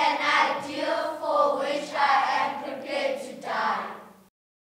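A group of children's voices speaking together in unison, overlapping into a chant-like chorus, cutting off suddenly a little past four seconds in.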